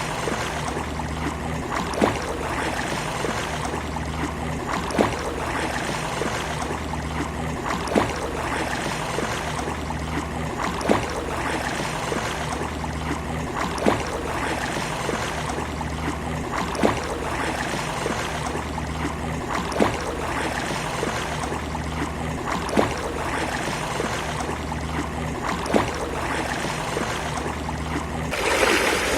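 Steady wash of sea water on a shore, with a short sharp click about every three seconds. Near the end a wave surges in louder.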